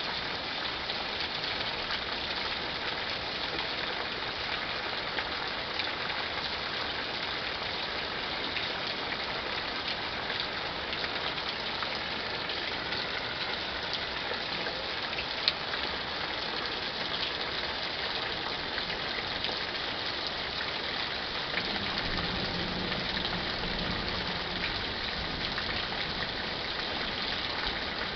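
Steady heavy rain during a thunderstorm, an even dense hiss throughout, with one sharp tap about halfway and a low rumble swelling in for a few seconds about three-quarters of the way through.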